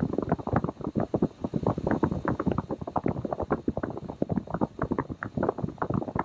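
Ford F-250 Super Duty's gasoline engine idling, with a fast, uneven run of knocks. The engine has an intermittent cylinder 1 misfire, which the mechanic suspects comes from the ignition coil.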